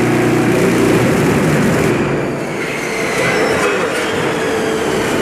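Poyatos Novabloc concrete block-making machine running through a moulding cycle: a loud, dense mechanical clatter and hum as the mould is filled and compacted, with a humming tone fading out about a second in.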